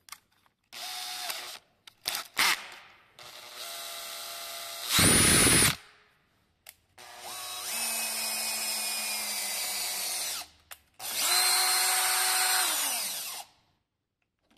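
Makita DDF482 18 V cordless drill driver turning a lathe's feed screw through a 3D-printed power feed adapter. It runs in bursts: two short blips, then a run that jumps to a loud, higher whine about five seconds in, then two longer steady runs, the last one winding down in pitch as it stops.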